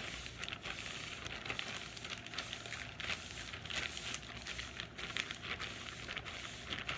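A plastic bag crinkling and rustling in quick, irregular strokes as it is rubbed over short hair, used in place of a brush to lay the hair down.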